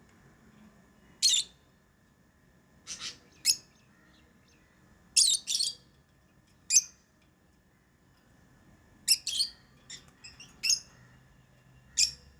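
Pet lovebirds giving short, sharp, high-pitched chirps, singly and in quick pairs, every second or two.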